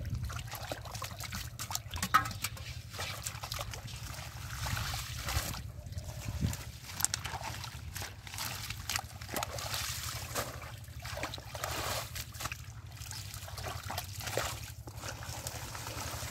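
Hands sloshing and splashing in shallow muddy water, with irregular drips and trickles as wet mud and water hyacinth are pulled up, over a steady low hum.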